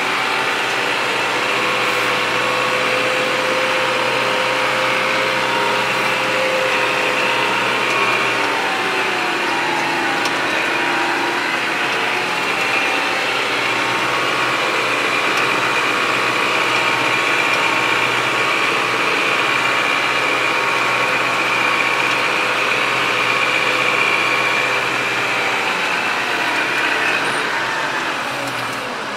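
Loader tractor's engine running steadily under way, heard from inside the cab, with a steady high whine over it. Both ease off near the end.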